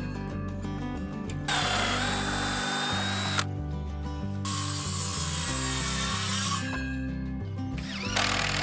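Cordless drill running in three bursts of about two seconds each, drilling into wooden fence boards, with a steady whine in the first burst; the third starts near the end. Background music plays throughout.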